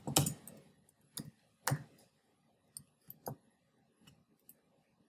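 Computer keyboard keystrokes: about seven separate clicks at an uneven pace, the loudest at the very start.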